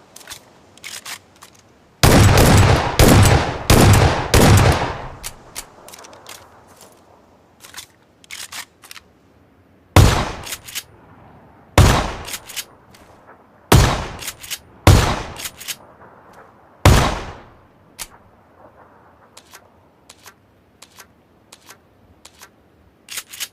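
Gunfire sound effects: a rapid burst of automatic fire lasting about three seconds, then five single loud shots spaced one to two seconds apart, each with a short echoing tail, and faint clicks between them.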